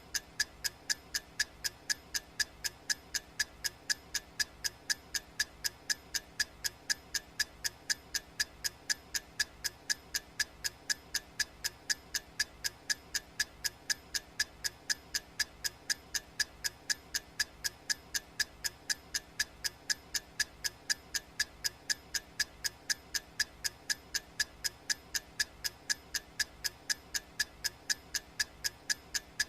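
Clock ticking sound effect: steady, evenly spaced ticks, about two a second.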